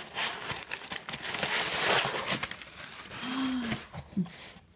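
Crumpled brown kraft packing paper rustling and crinkling as a hand digs through a cardboard box, loudest about two seconds in. A short hummed "mm" comes a little after three seconds.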